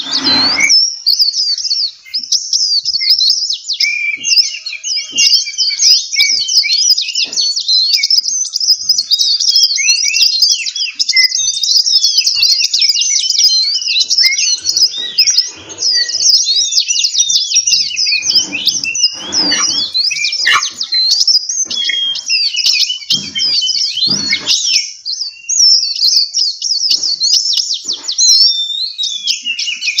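Several caged songbirds of mixed kinds singing together: a dense, continuous run of rapid high chirps, trills and whistled notes.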